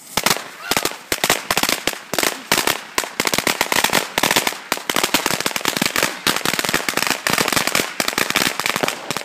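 Firecrackers going off in rapid succession: a dense, irregular run of sharp bangs, several a second, loud throughout.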